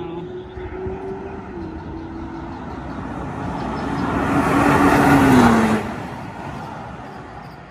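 Nissan GT-R's twin-turbo V6 at full speed on a flying lap, growing louder as the car approaches and passes close by about five seconds in. Its engine note drops in pitch as it goes past, then fades away down the straight.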